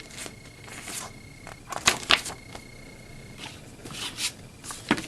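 Handling of a Blu-ray case and its paper inserts: a run of short rustles and clicks, the loudest about two seconds in and again near the end.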